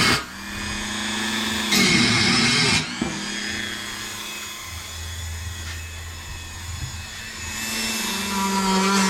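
Hand grinder running with a steady whine while cutting the snorkel opening in the truck's body sheet metal. There is a loud rasp of cutting at the very start and again about two seconds in. It then spins more lightly and bites back in near the end.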